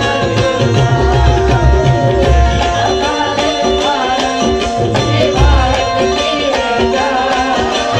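Live qawwali music: hand drums beat a steady rhythm with deep bass strokes under a harmonium melody.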